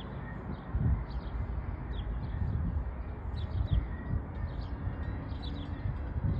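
Small birds chirping, many short high calls scattered throughout, over an uneven low rumble.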